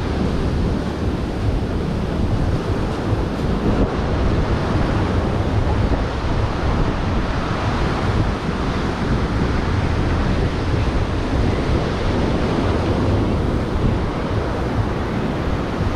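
Ocean surf washing onto the beach, a steady wash of breaking waves, with wind rumbling on the microphone.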